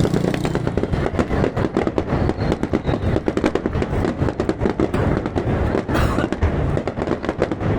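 Fireworks going off in a dense, continuous crackle of many rapid small bangs.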